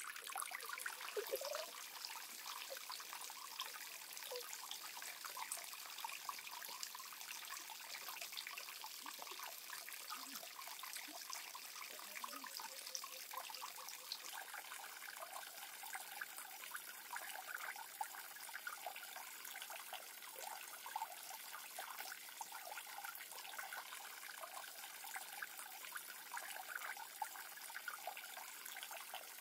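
Water trickling steadily, with small drips and splashes.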